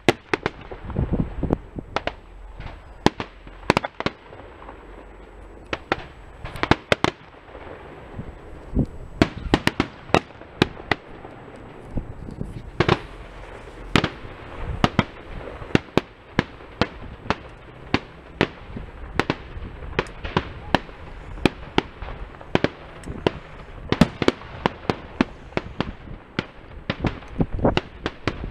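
Aerial fireworks display heard from afar: an irregular run of sharp bangs and crackles from shells bursting, at times several a second.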